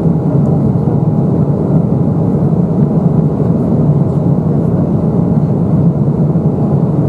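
Steady cabin noise of an Embraer 195 jet airliner in flight: a loud, even rumble of the engines and airflow heard inside the cabin from a window seat.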